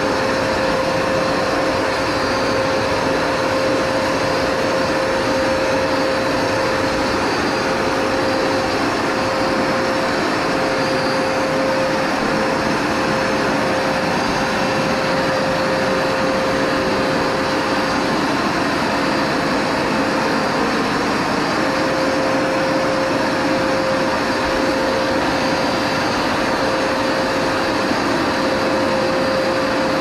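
Upright carpet washer running, its suction motor giving a steady, even whine with a held tone that weakens for a while in the middle.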